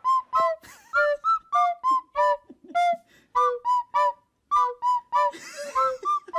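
Background music: a bouncy melody of short, separate high notes, about three or four a second, with a brief hiss about five seconds in.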